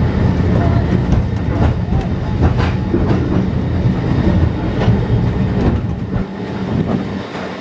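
Great Orme Tramway car, cable-hauled, rolling downhill on its rails heard from aboard, a steady low rumble with frequent clicks and knocks from the running gear. The low rumble eases off about six seconds in.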